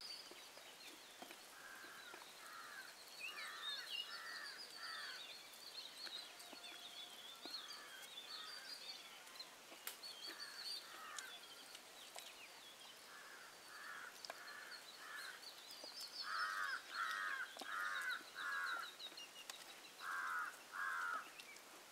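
Crows cawing in repeated series of two to five caws, the loudest series near the end, with smaller birds chirping faintly higher up.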